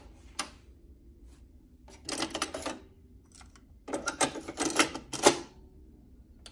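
Plastic clicks and clatter from the Panasonic SA-PM29's top-loading cassette deck being opened and a tape handled in it: three clusters of clicks, the sharpest about five seconds in.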